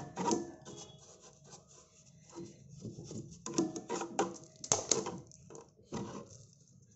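A small brush scrubbing flour out of the aluminium grinding chamber of a domestic flour mill, bristles scraping against the serrated grinding ring in irregular scratchy strokes. The loudest strokes come a little past the middle.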